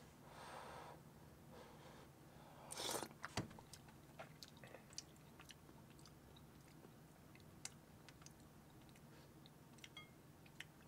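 Faint eating sounds of a spoonful of beef gukbap (beef soup with rice): a short sip of the broth about three seconds in, then quiet chewing and small mouth and spoon clicks. Near the end, a spoon clinks lightly against the bowl.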